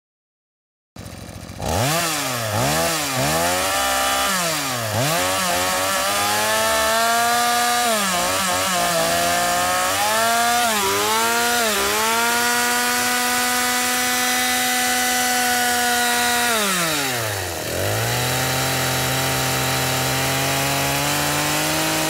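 Petrol chainsaw cutting wood: after a second of silence the engine comes in, is revved up and down several times, then runs at high speed with its pitch dipping briefly now and then under load. About seventeen seconds in it drops steeply toward idle, then climbs slowly again.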